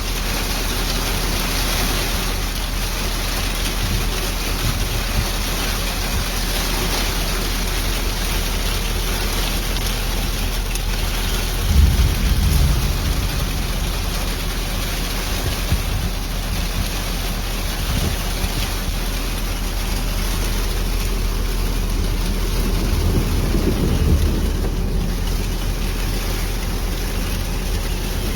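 Steady heavy downpour of rain and hail from a storm, with two louder low rumbles, about twelve seconds in and again near twenty-four seconds.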